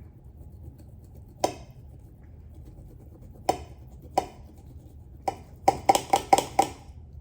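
Metal cutlery clinking against a plate: four single ringing taps spaced out, then a quick run of about six clinks near the end.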